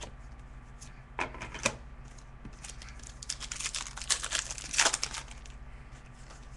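Hockey card pack being opened and its cards handled: a couple of sharp clicks, then a quick run of wrapper crinkling and card clicks, busiest in the middle.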